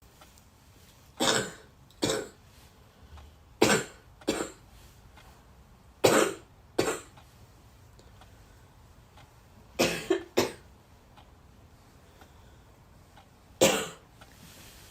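A person coughing in short bouts, mostly two coughs at a time, a bout every three to four seconds; one bout has three coughs, and the last is a single cough.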